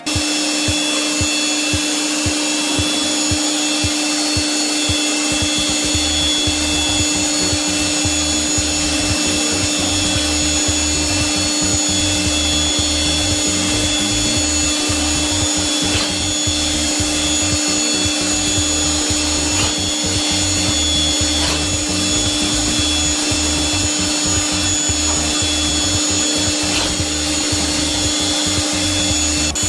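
CNC milling machine spindle running steadily as a small end mill cuts an aluminium part under coolant: an even, continuous whine with steady high tones. A low, regular throbbing joins about five seconds in.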